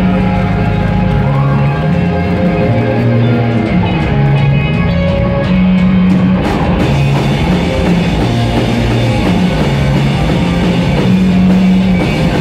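Live rock band playing an instrumental passage: electric guitars over a drum kit, with low notes stepping from pitch to pitch underneath. It grows fuller about halfway through.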